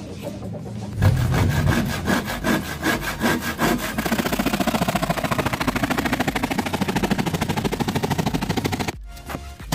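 Hand saw cutting a sheet of 9 mm plywood. A few slower strokes start the cut about a second in, then it settles into fast, even back-and-forth strokes, stopping briefly near the end.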